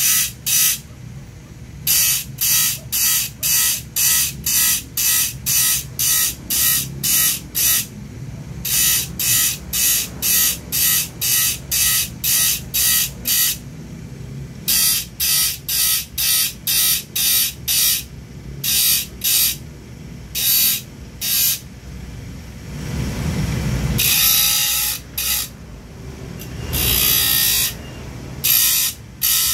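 Bench grinder's thin wheel grinding the teeth of a handsaw one gullet at a time: short rasping bursts of metal on the wheel, about three a second, stopping briefly a few times as the saw is moved along, over the steady hum of the grinder's motor. A louder, lower rushing sound swells about three-quarters of the way through, and a longer grind follows it.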